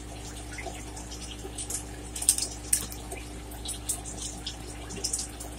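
Wet eating sounds of a person chewing seafood étouffée, with small sharp clicks and smacks scattered a few times a second over a steady low hum.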